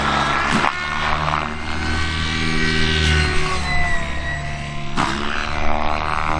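Radio-controlled helicopter flying an aerobatic routine: its rotor and motor whine rises and falls in pitch as the headspeed and blade load change, with two brief sharp surges about half a second in and near five seconds.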